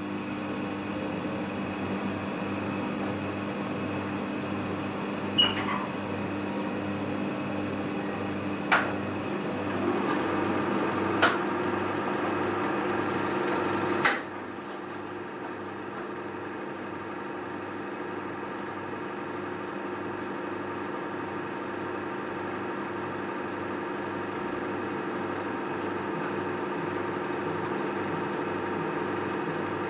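Cinema film projector running with a steady hum and an even low pulse, as the show is started. Four sharp clicks of its controls come in the first half; after the last the hum drops and settles.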